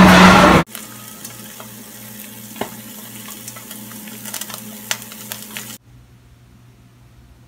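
Egg and sausage frying in a nonstick pan: a soft, steady sizzle with scattered pops and crackles. It follows a short stretch of loud music that cuts off about half a second in. Near the end the sizzle gives way to quiet room tone.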